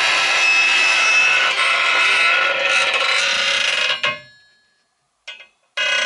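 Wooden door creaking on its hinges as it is swung slowly, a long, loud creak with many tones at once. It stops suddenly about four seconds in, and a second creak starts just before the end.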